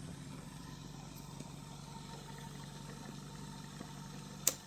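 Homemade pulse motor running, its 180-degree rotor driven by coils switched through two reed switches: a steady, choppy hum with a fast ticking pulse. Near the end comes a sharp click, and the hum stops.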